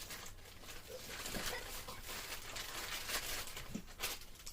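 Plastic packaging bag rustling and crinkling as it is torn open and handled, in a run of short irregular crackles.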